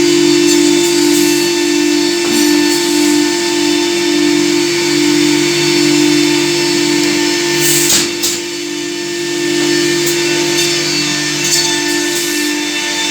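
Holz-Her Sprint 1310-1 edge banding machine running with a steady motor hum and hiss. There is a short, sharper burst about eight seconds in.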